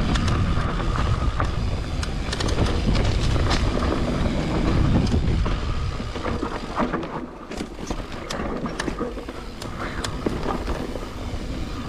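Mountain bike being ridden along a dirt trail: wind buffeting the microphone and a heavy rumble from the ride, with frequent short clicks and rattles. The rumble is strongest in the first half and eases off after about six seconds.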